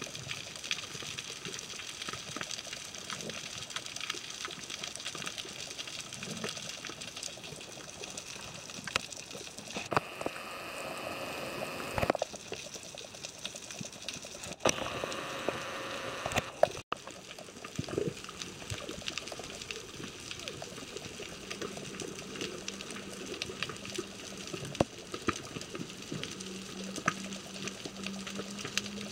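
Underwater reef ambience: a constant crackle of small sharp clicks, the typical sound of snapping shrimp. Two stretches of bubbling hiss come about ten and fifteen seconds in, and a low steady hum comes in after about twenty seconds.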